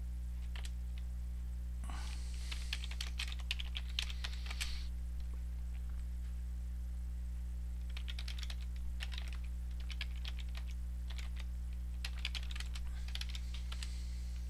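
Typing on a computer keyboard in three bursts of rapid key clicks, over a steady electrical hum.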